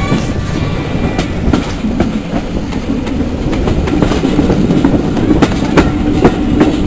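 Passenger train running along the track, heard from the carriage: a steady low rumble of wheels on rails, with irregular clicks and knocks as the wheels pass over the track.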